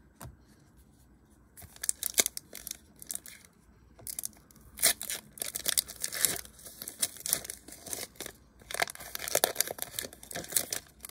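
Foil trading-card pack being torn open, its wrapper crinkling as the cards are pulled out, in irregular crackly bursts starting about two seconds in.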